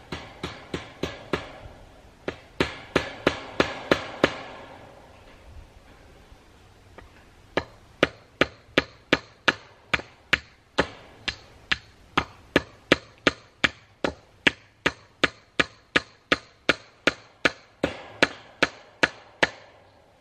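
Hammer driving staples into a wooden fence post to fasten welded wire fence: quick runs of blows, about three a second, with a pause of a few seconds about four seconds in.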